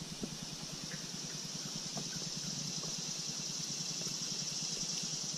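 Faint, steady, high hiss of outdoor ambience, with a few light ticks.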